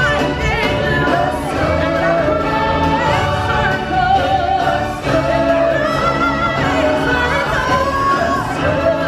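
Loud live stage-show music: singers performing a song over a full musical accompaniment that runs without a break.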